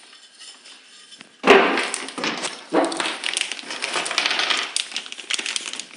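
Clattering and clinking of small hard parts being handled and rummaged through, starting with a sharp knock about a second and a half in.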